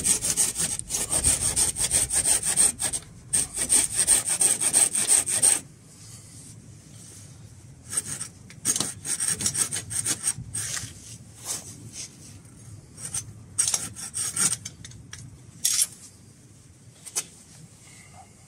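Hand saw cutting through a pale-barked wooden pole in fast back-and-forth strokes for about five and a half seconds. After a short pause it goes on in shorter, lighter runs of strokes.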